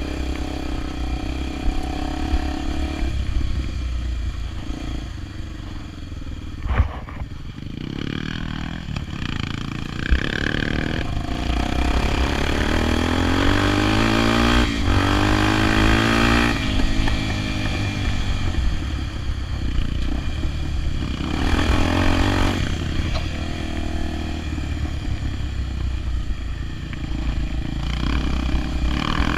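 Honda XR 250 Tornado single-cylinder motorcycle engine running, its pitch rising and then falling in the middle, with a couple of sharp knocks early on.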